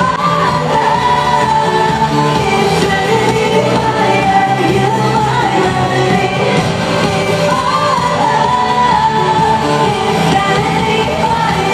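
Female pop singer singing live into a microphone, holding long high notes over band accompaniment.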